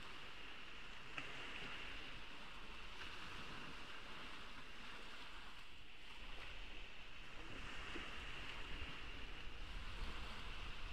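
Ocean waves washing on a beach: a steady hiss of surf with a low rumble that swells slightly near the end.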